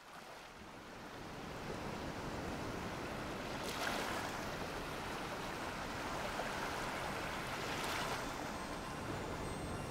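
Ocean surf: a steady wash of waves fading in, with two waves swelling and breaking about four and eight seconds in.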